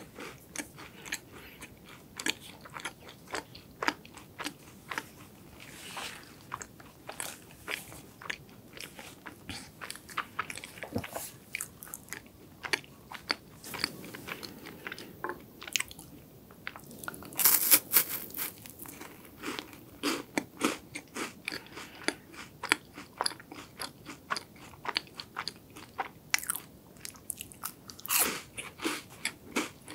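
Close-up eating sounds of crunchy Loacker chocolate wafers being bitten and chewed: a dense run of crisp crunches, with louder bites about halfway through and again near the end.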